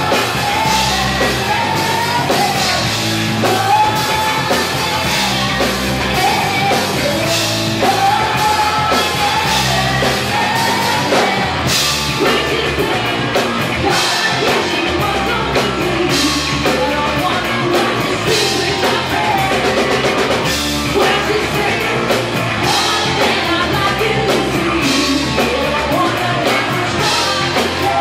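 Live rock band playing: lead vocals sung over electric guitar, bass and a drum kit, at full volume with a steady beat.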